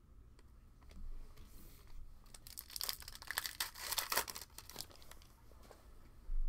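Foil trading-card pack being torn open by hand: a burst of crinkly tearing and rustling for about two seconds, with a short low thump near the end.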